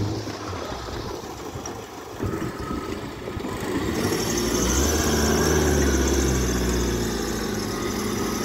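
Modified off-road 4x4's engine working under load through mud, getting louder about four seconds in and then holding steady.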